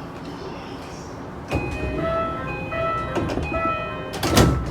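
Japanese train door chime: short electronic chime tones repeating over the train's background noise, starting with a knock about a second and a half in. A loud thump comes near the end.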